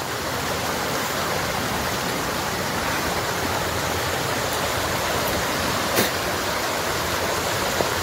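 Steady rush of water flowing over rocks in a forest stream below a waterfall. There is one short knock about six seconds in.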